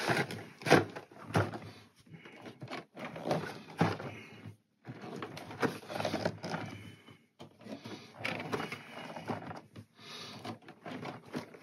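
Cardboard boxes being handled, slid over one another and across a cutting mat: a string of short rustles and scrapes with a few brief silences.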